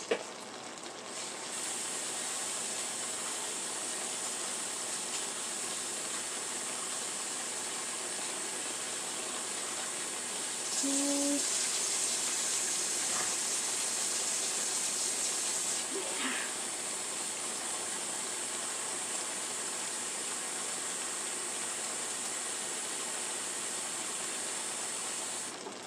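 Water running steadily from a kitchen tap, turned on about a second and a half in and shut off just before the end, running harder for a few seconds in the middle.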